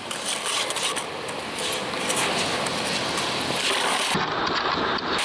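Skateboard wheels rolling and the board scraping on concrete and asphalt, with a few light knocks.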